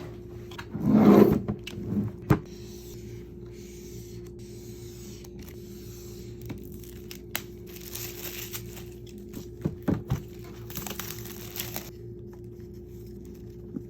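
MacBook Air box and packaging being handled and opened: scraping and rustling of cardboard and wrapping, with a loud knock about a second in, a sharp click just after, and a longer rasping scrape near eleven seconds, over a steady faint hum.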